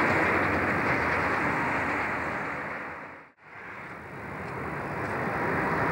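Steady outdoor background noise on an old camcorder soundtrack, a wash of wind and distant traffic. It fades out to silence a little over three seconds in and fades back up.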